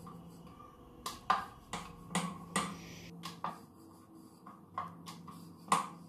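Light, sharp clicks and taps, about a dozen at irregular intervals, from kitchen utensils being handled while parathas are made, over a faint steady hum.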